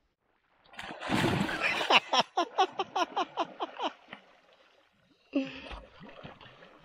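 A swimmer splashes loudly in the river about a second in. He then lets out a quick run of about eight short cries, each falling in pitch. Near the end come another brief shout and lighter splashing.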